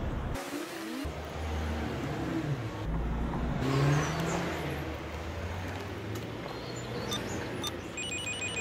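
Outdoor traffic noise with a car going by. Near the end, a few short electronic beeps from a door intercom keypad.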